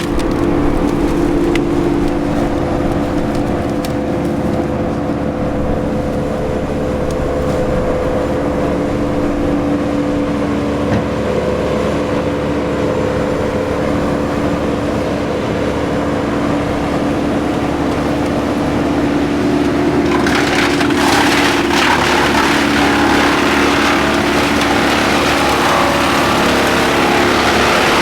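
Wood chipper running steadily under load, its engine holding a constant pitch while it grinds and splinters wood into chips. About twenty seconds in, the grinding grows louder and harsher.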